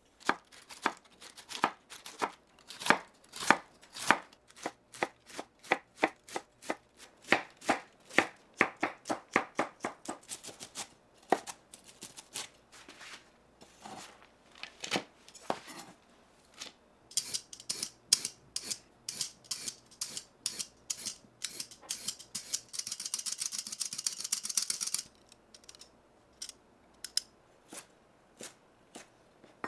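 Kitchen knife chopping vegetables on a cutting board, two or three strokes a second at first, then fewer. About three-quarters through, crisper strokes build to a quick continuous run of chopping, followed by a few last cuts.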